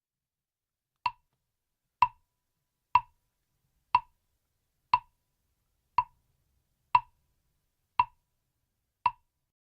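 Mokugyo, the Buddhist wooden fish drum, struck with a mallet nine times at a steady pace of about one stroke a second, each stroke a short pitched knock that dies away quickly.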